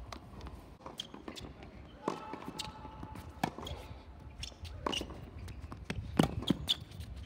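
Tennis ball bouncing on a hard court and being struck by rackets: sharp pops a second or two apart, with several in quick succession near the end.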